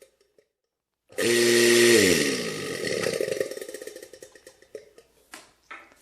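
Rebuilt Gast rotary-vane vacuum pump, fitted with new vanes, given a brief bump of power. Its motor starts suddenly about a second in and runs with a steady hum and airy rush for under a second. After the power is cut it winds down with falling pitch and fades out, showing that the pump spins up and runs.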